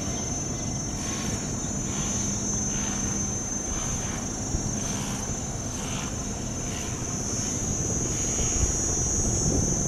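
Steady low drone of a passing river cargo barge's engine, with a constant high-pitched insect buzz over it.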